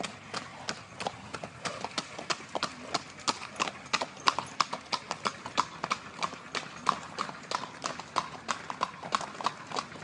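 Horses' hooves clip-clopping on an asphalt road: a steady, brisk beat of about four hoofbeats a second.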